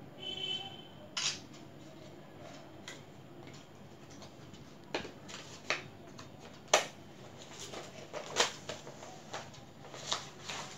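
A smartphone and papers being handled: a short high beep near the start, then a string of irregular sharp clicks and taps, the loudest a little past the middle, over a faint steady room hum.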